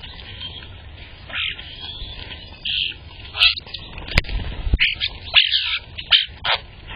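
Small birds chirping in short calls, more often and louder in the second half, with a sharp knock about four seconds in.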